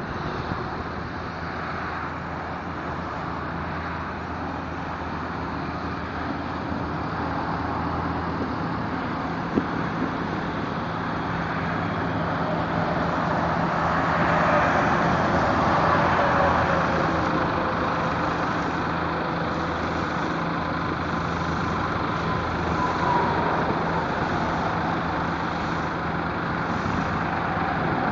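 Steady running of a hydroseeding rig's engine and pump with the hiss of slurry spraying from the hose nozzle, over road traffic. Around the middle it grows louder as a vehicle passes with a falling pitch, and more pass with gliding pitch near the end.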